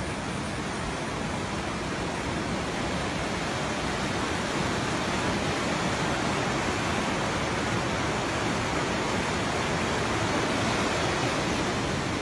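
Rushing floodwater: a steady, even rush of fast-flowing water with no let-up.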